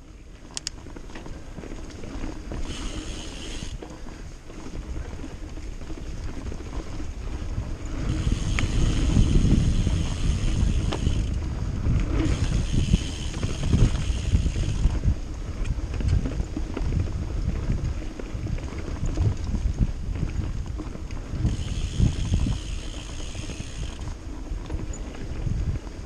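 Trek Fuel EX full-suspension mountain bike riding over a dirt trail: a steady low rumble and rattle of tyres and frame on the ground, with the rear hub's freewheel buzzing four times as the rider coasts.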